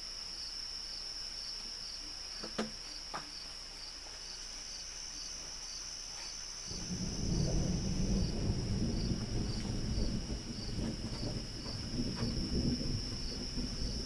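Crickets chirping in a steady, evenly pulsed high trill. About halfway through, a low rumble of distant thunder rolls in and keeps rolling, louder than the crickets.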